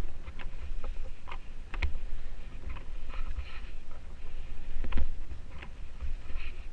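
Wind buffeting the action camera's microphone during a ski descent, with skis scraping and chattering over crusty, uneven snow in irregular sharp clicks, one of the loudest about five seconds in.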